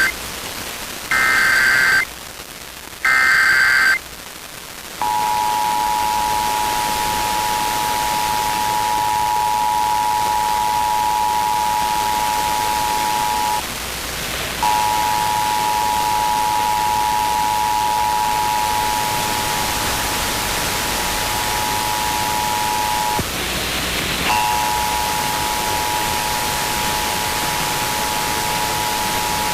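Emergency Alert System SAME header: short bursts of digital data tones, each about a second long and a second apart, the last two heard whole. Then the EAS two-tone attention signal, a steady two-note tone that cuts out for about a second twice and resumes, over steady static hiss. The sequence announces an incoming emergency alert.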